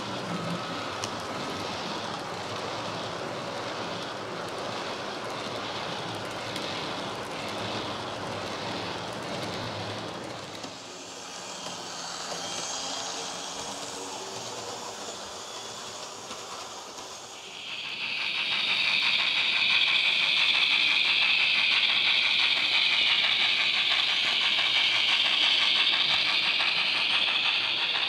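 Model train running on a layout. About two-thirds of the way in, a loud steady hiss starts suddenly and carries on.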